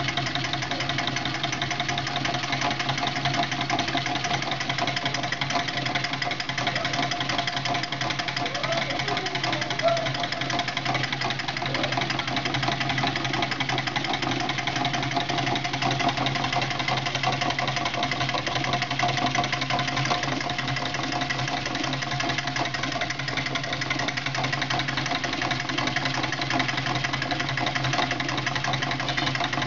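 Home-built beer-can gamma Stirling engine running steadily, its pistons and crank linkage clattering in a fast, even rhythm, with a steady hum underneath.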